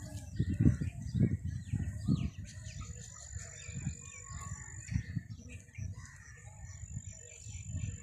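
Many small birds chirping and calling across open farmland, with a thin steady high note that comes and goes twice. Low buffeting on the microphone comes in gusts and is loudest in the first two seconds.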